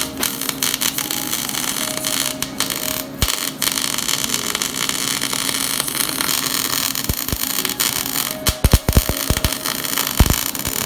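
Electric arc welder crackling and hissing steadily while plates are welded into an open differential to lock it, with a few louder sharp pops in the last few seconds.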